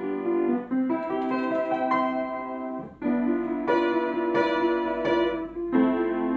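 Upright piano played solo: a phrase of melody over chords, a brief break about three seconds in, then a new phrase of struck chords.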